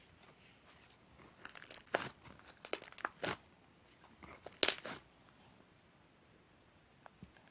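Irregular crinkling and crackling: a cluster of short, sharp rustles and snaps over a few seconds, the loudest a little past the middle.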